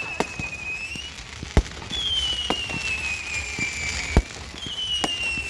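Fireworks going off: whistling fireworks giving three long, slowly falling whistles one after another, with two sharp bangs and a few lighter pops among them.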